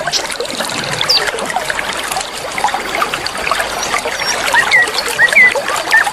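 Flowing river water trickling steadily, with small birds giving short, quick chirps over it that grow busier near the end.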